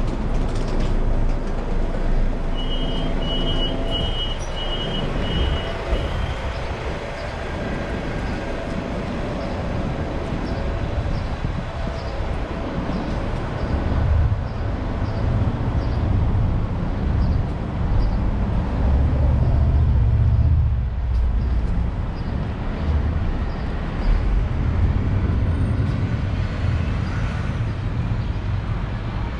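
City street traffic: a continuous low rumble of passing vehicles, loudest about two-thirds of the way through, with a run of short high beeps a few seconds in.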